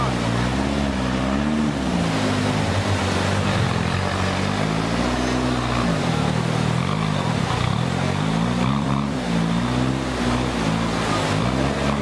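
Modified off-road competition 4x4's engine revving up and down over and over as it crawls up a steep, muddy bank, under a steady rushing noise.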